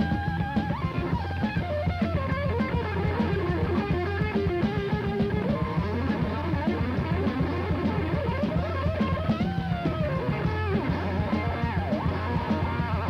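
Heavy metal band playing live through an instrumental stretch: electric guitar lines with bending, gliding notes over steady drums and bass.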